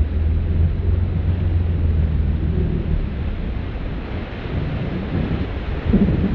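Wind buffeting the microphone over the rush of the boat's churning wake and a low engine drone. The drone eases after about three seconds.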